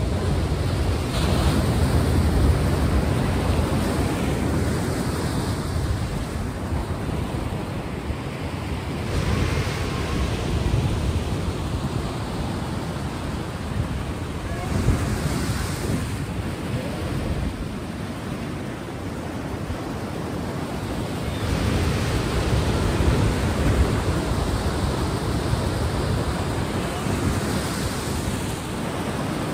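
Sea waves breaking and washing on a shore. The rushing surf swells and eases every several seconds.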